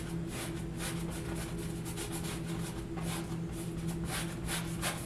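Paintbrush scrubbing acrylic paint onto a stretched canvas in short, irregular repeated strokes. A steady low hum runs underneath.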